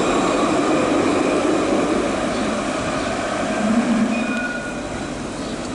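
Alstom Citadis low-floor tram running along street track and passing, its rumble fading as it draws away over the last couple of seconds.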